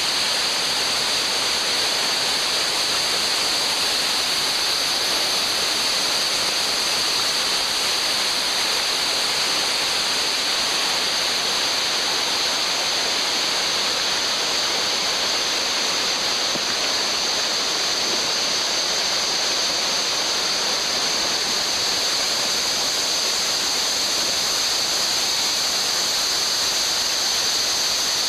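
Unuk River water rushing steadily over rapids, an even, unbroken hiss.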